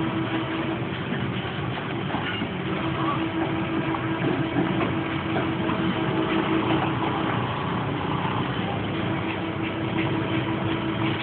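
An engine running steadily, a continuous hum with one constant tone.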